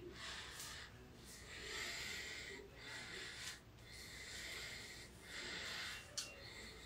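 Razor scraping through lathered stubble in a series of short strokes, each under a second with brief pauses between, and a single sharp click about six seconds in.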